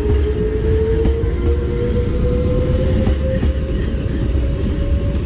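Oigawa Railway train running by close, with a heavy low rumble and a steady whine that slowly rises in pitch as it picks up speed, and a few faint clacks of wheels over rail joints.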